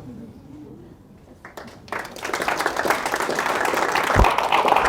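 A small audience applauding, starting about two seconds in after a short quiet pause, with a single low thump near the end.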